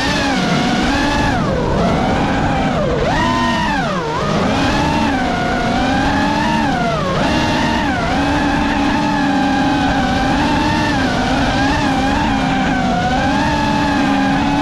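5-inch FPV quadcopter's brushless motors whining. The pitch dips and climbs back sharply several times in the first eight seconds as the throttle is chopped and punched, then holds a steadier throttle with small wobbles.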